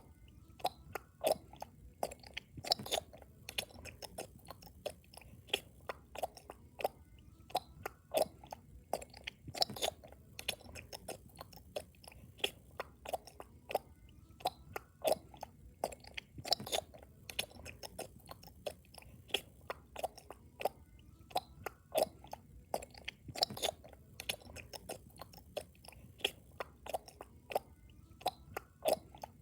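A person chewing loudly with the mouth close to the microphone: a continuous, irregular run of sharp mouth clicks and smacks, a few a second.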